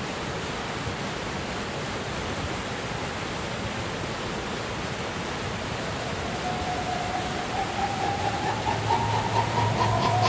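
Steady, even rushing noise. About six seconds in, a held tone comes in and rises a little in pitch; near the end a low hum joins it as the sound swells louder.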